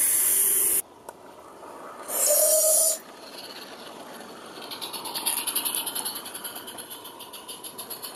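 Live-steam 16mm-scale model locomotive: two short loud bursts of steam hiss in the first three seconds, the second with a steady tone in it. From about four and a half seconds on comes a quicker, quieter rhythmic chuffing as the locomotive and its wagons pass close by.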